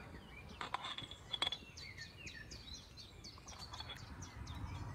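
Faint bird chirps, short falling calls repeated over and over, with a couple of light clicks about a second in.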